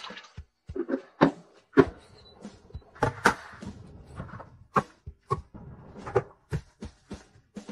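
A cleaver chopping on a cutting board, through cubes of raw beef and then chilies. The blade strikes the board in single sharp knocks at an uneven pace, a few to the second at most.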